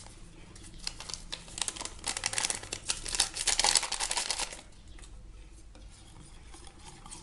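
Pink paper sachet of baking yeast crinkling and rustling as it is handled and shaken out over a bowl of batter, in crackly bursts through the first few seconds, then quieter.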